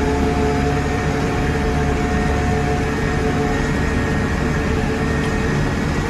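Case 580 Super M backhoe's diesel engine running steadily under way, heard from inside the cab, with a low rumble and a few held tones.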